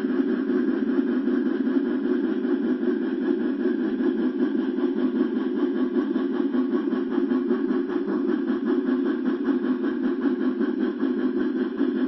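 HO scale model coal train pulled by a C&O 2-6-6-6 steam locomotive, running along the track: a steady mechanical running noise of motor, gearing and wheels on rail, with a fine rapid pulsing.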